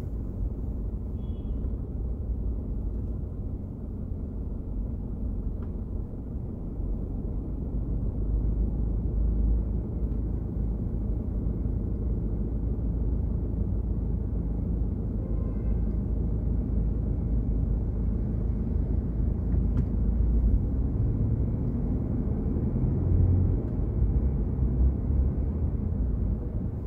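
Low, steady rumble of a car moving slowly in city traffic: engine and tyre noise, with little high-pitched sound.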